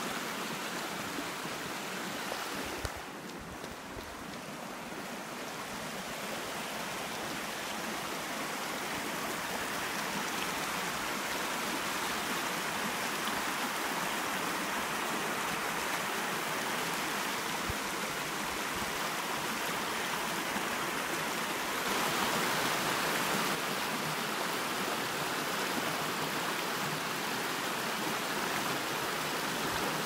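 A rocky stream rushing over stones in a steady, even rush of water. It drops briefly about three seconds in and swells for a second or so past the middle.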